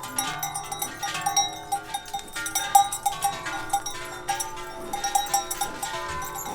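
Many cowbells ringing at once, struck often and irregularly, as the cattle walk.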